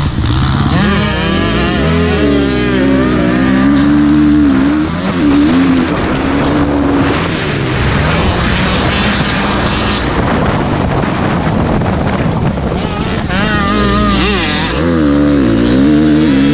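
Motocross dirt bike engines revving hard, the pitch rising and falling as the riders accelerate and shift through the turns and straights. The revving is strongest in the first few seconds and again near the end.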